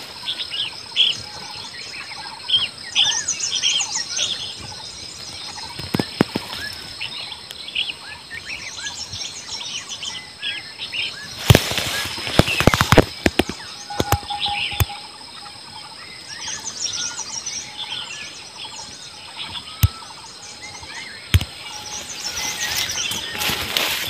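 Small birds chirping and calling in quick, short, high notes, over a steady high-pitched hum. A few sharp clicks come near the middle.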